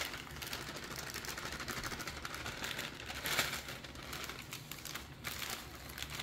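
Clear plastic cake-mix bag rustling as it is handled and shaken over a foil pan while dry cake mix is spread by hand, with the loudest rustle about three seconds in.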